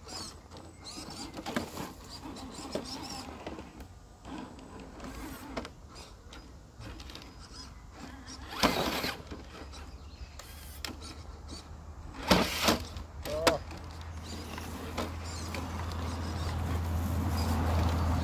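Small electric motor and gearbox of an RC rock crawler whining in uneven spurts as it claws up a rock. Several sharp knocks as the truck strikes the rock about halfway through and again a few seconds later. A low steady hum builds near the end.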